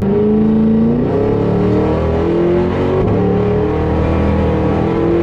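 Cadillac Escalade-V's supercharged V8 at full throttle, heard from inside the cabin. It pulls hard, its pitch climbing and dropping back at each upshift, about three times.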